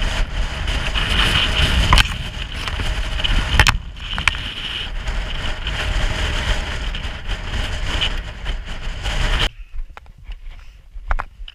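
Strong wind buffeting the microphone on an exposed mountain ridge, a dense rumbling rush that stops abruptly about nine and a half seconds in, leaving a few faint clicks.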